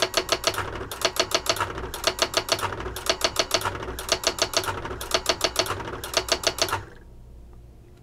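Brother AX-22 electronic typewriter running its Word Out correction: the print hammer strikes rapidly through the lift-off correction tape as the carriage steps back over the word, lifting each letter off the paper. The strikes come in several quick bursts and stop about seven seconds in.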